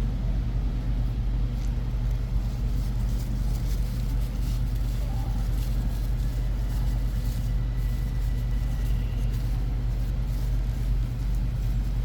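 A steady low hum, with faint light clicks and taps of small gearbox parts being handled.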